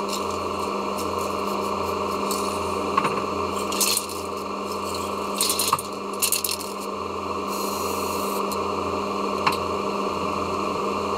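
Aerosol spray-paint cans being handled, with scattered sharp clicks and rattles, a cluster about four seconds in and more around five to six seconds. A short hiss of spray near the middle, over a steady hum.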